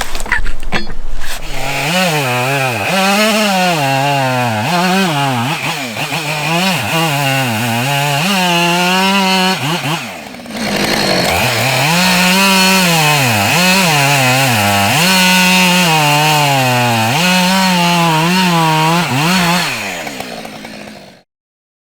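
Chainsaw cutting through a log, its engine pitch rising and falling over and over as the chain bites into the wood and frees up again. There is a brief drop about ten seconds in, and the sound cuts off suddenly near the end.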